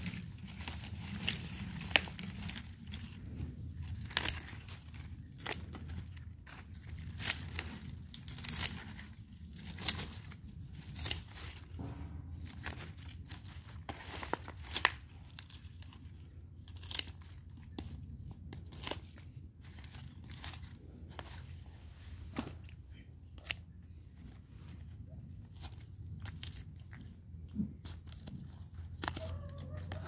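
Scissors snipping through begonia stems while the plants are pruned back: sharp, irregular snips, roughly one every second or two, over a low steady hum.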